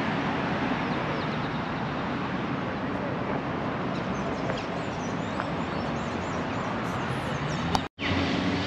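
Street ambience: steady traffic noise with birds chirping over it. The sound cuts out briefly near the end.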